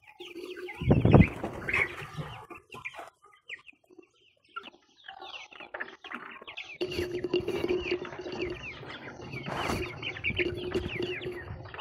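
Young chicks and ducklings peeping, many short high chirps overlapping, with a thump about a second in. A steady low hum joins from about seven seconds in.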